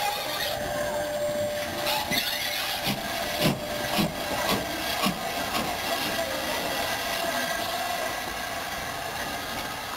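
Black Five steam locomotive 44871, a two-cylinder 4-6-0, moving slowly away under steam, with a run of short sharp beats between about two and five seconds in over a steady running noise.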